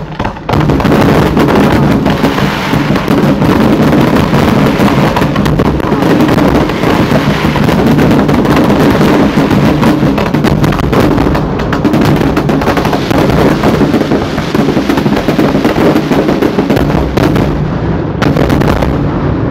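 Fireworks finale: a dense, continuous barrage of aerial shell bursts and crackle, loud and unbroken, easing slightly near the end.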